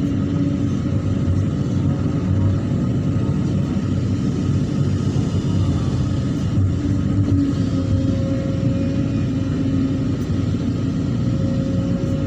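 Hydraulic excavator at work: its diesel engine running steadily under load, with a steady whine over it that swells now and then.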